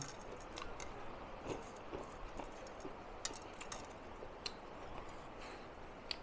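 Close-up chewing of food: irregular soft mouth clicks and smacks, with a few sharper clicks in the middle and near the end.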